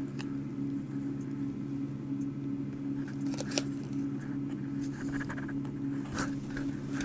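Handling noises from unpacking a pistol: scattered light rustles and clicks over a steady low hum.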